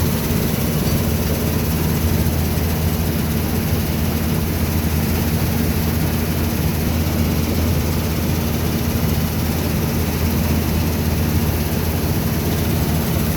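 Heavy diesel farm machinery running steadily under load during the wheat harvest: a constant low engine drone with an even mechanical rush over it.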